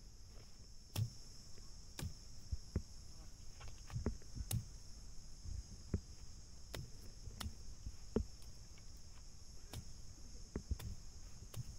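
Steady high drone of insects in the grass, with irregular knocks, thumps and rustles of footsteps and a stick striking low plants.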